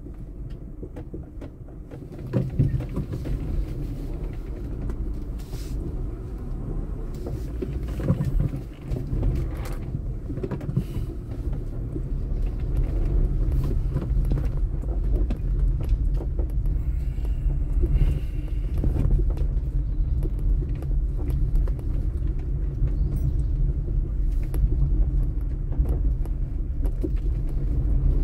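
Car cabin noise while driving slowly over an unpaved dirt street: a low engine and tyre rumble with many short knocks and rattles from the body and suspension over the bumps. The rumble grows louder about halfway through.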